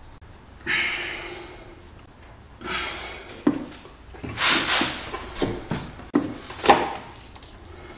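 Hands working a rubber vacuum hose and plastic tee fitting in an engine bay: a string of irregular rubbing and knocking handling noises, the loudest about halfway through and again near the end.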